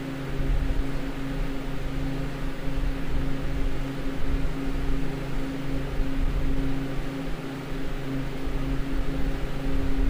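Walk-in freezer's Bohn evaporator unit running: its fans give a steady hum over an even rush of air, with an unsteady low rumble underneath.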